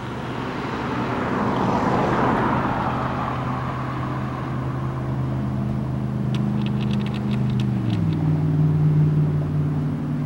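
Road vehicles passing by on the street beside the tracks: a broad swell of tyre and engine noise about two seconds in, then a steady engine note that drops in pitch about eight seconds in as a vehicle goes past. A short flurry of high clicks comes just before the drop.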